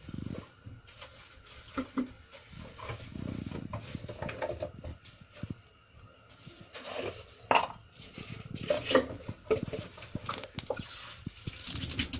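Cooking pot and kitchen utensils clinking and knocking irregularly as ingredients are added to a pot of tripe set to boil, with a quicker run of clinks past the middle.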